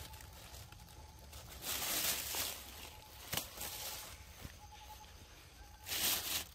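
Dry leaf litter rustling and crunching in two noisy bursts about four seconds apart, with a single sharp click between them.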